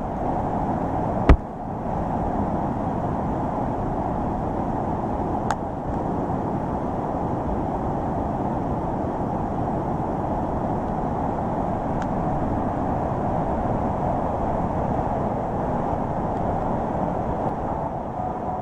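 Muddy floodwater rushing in a torrent over rocks, a steady unbroken rush of water mixed with heavy rain. A single sharp knock stands out about a second in.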